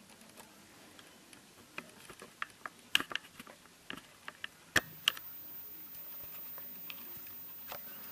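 Scattered light clicks and crinkles of a tent's oilcloth floor being handled, the sharpest near the middle.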